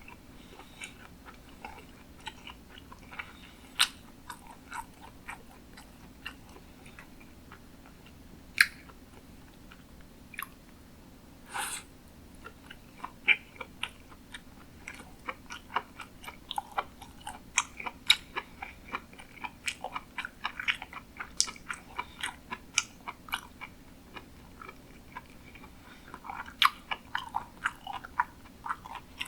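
Close-miked chewing of sushi: irregular wet mouth clicks and smacks, a few sharper ones early on, then denser, quicker chewing from about halfway through.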